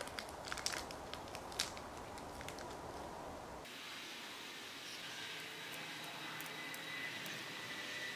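Small plastic parts bag crinkling and clicking as fingers pick a brass carburettor jet out of it, then only a faint steady hiss.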